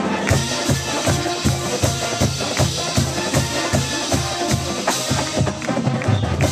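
Music with a heavy, steady bass-drum beat, about two and a half beats a second, with percussion and other instruments over it.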